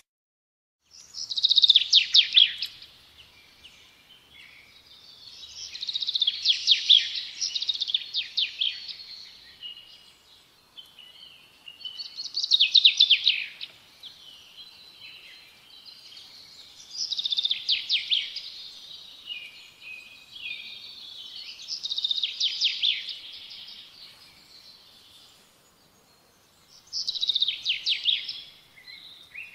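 A songbird singing: phrases of rapid trilled notes, about six in all, each one a second or two long and repeated every four to five seconds, with softer chirps in between.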